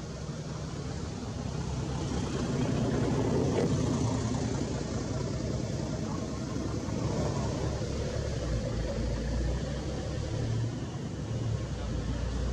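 Steady low rumble of an engine running unseen, swelling slightly a few seconds in.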